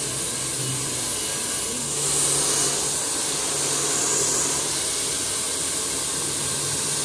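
Handheld hair dryer blowing on a freshly cut head of hair: a steady rushing whoosh over a low motor hum, getting a little louder about two seconds in as the nozzle comes closer.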